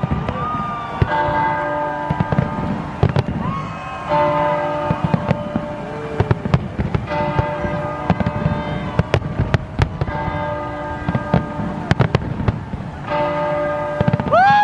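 Fireworks bursting overhead, with many sharp bangs and crackles over a low rumble. Bell-like chiming tones ring out every few seconds.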